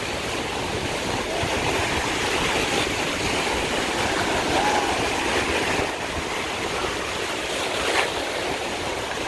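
Ocean surf washing and breaking around a person standing in the sea: a steady rush of waves.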